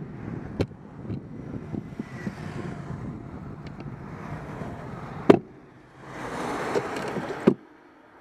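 Wind on the microphone and road rumble from a bicycle-mounted camera while riding, with three sharp knocks, about half a second in, about five seconds in and near the end.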